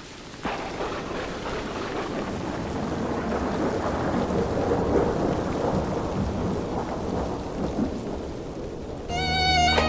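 Rain falling with thunder: a sudden crack about half a second in, then a rumble that swells and slowly fades over several seconds. About nine seconds in, string music starts over it.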